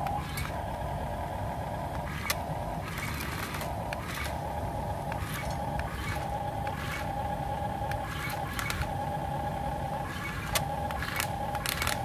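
Electric gear motors of an RC excavator whining as the boom lifts and the arm and bucket move. The whine runs in short stretches that stop and start again, with sharp clicks between them.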